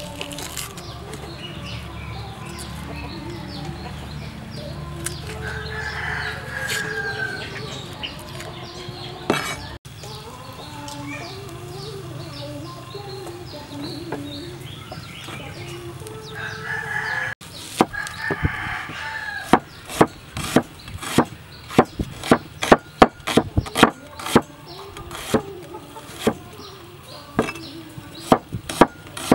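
Cleaver chopping red onion on a wooden cutting board: sharp knocks about two a second, starting about two-thirds of the way in. Before that, roosters crowing over steady outdoor background, twice.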